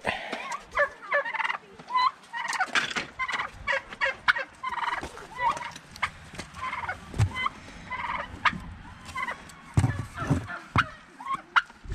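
Domestic turkeys gobbling over and over in quick short calls, with scattered sharp clicks and knocks mixed in.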